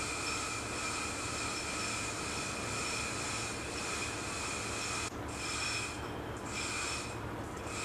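Steady ship engine-room machinery noise: a constant hum with several high whining tones. In the second half the high whine briefly drops away a few times.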